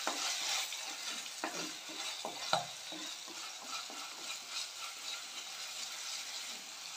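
Onions, curry leaves and ginger-garlic paste sizzling in oil in a clay pot, being sautéed until the raw smell of the ginger-garlic goes. A wooden spatula stirs and scrapes against the pot, with a sharper knock about two and a half seconds in.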